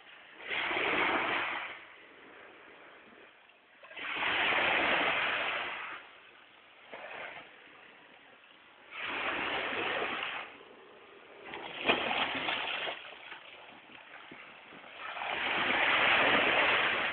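Sea waves breaking and washing onto a beach. The surf swells up and dies away five times, roughly every three to four seconds.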